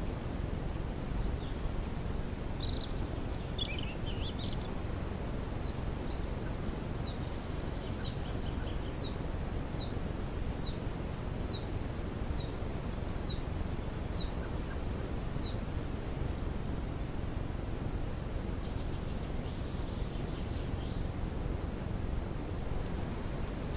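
A bird singing a run of about fourteen short, high, down-slurred notes at an even pace, starting about five seconds in and stopping around sixteen seconds, with a few other high calls just before. Under it, steady low background noise.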